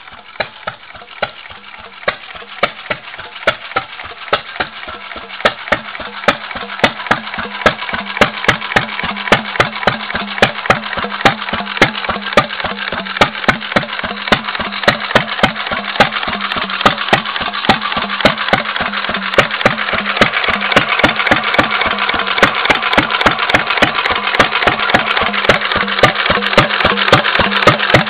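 Antique Stover 4 horsepower single-cylinder, hopper-cooled gas engine running steadily, throttle-governed rather than true hit-and-miss, firing sharp exhaust pops about three times a second over a low hum. It grows steadily louder as the microphone moves close to it.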